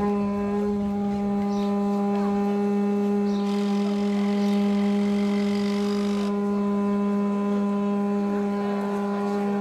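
Conch-shell trumpet (the Moluccan tahuri) blown in one long, steady, low note, held without a break.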